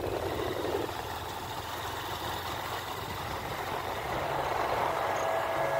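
Motorcycle engine running while riding along a road, with wind rushing over the microphone; slowly getting louder toward the end.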